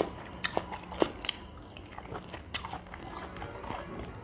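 Close-miked chewing of a cucumber slice: crisp crunches and wet mouth clicks, the loudest about a second in, then softer chewing.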